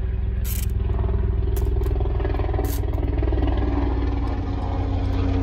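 Several short hissing bursts from an aerosol can of lubricant sprayed through a straw onto a blower motor's flange, over a steady low mechanical drone like a running engine.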